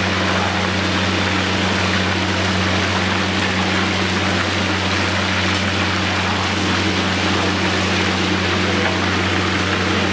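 Hot oil sizzling steadily as chicken pieces deep-fry in a kadai, with a steady low hum underneath.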